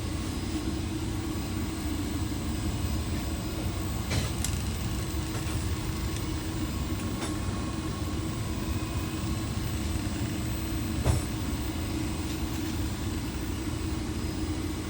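Steady low mechanical hum, with a brief knock about four seconds in and another about eleven seconds in.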